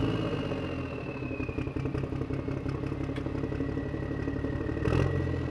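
Engine running: a quieter, rapid chugging idle through most of it, going back to a louder, steadier run near the end, with a thin high whine above it.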